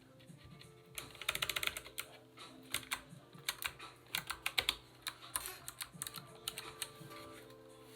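Typing on an Anne Pro 2 mechanical keyboard with clicky Kailh Box White switches and PBT keycaps: irregular fast runs of sharp key clicks, busiest about a second in and again around the middle.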